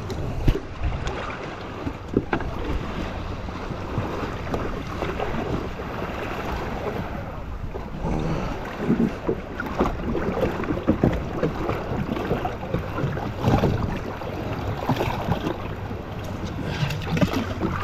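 Shallow water sloshing and splashing against a Sea-Doo jet ski's hull as it is moved through the water by hand, in irregular splashes. Wind buffets the microphone throughout.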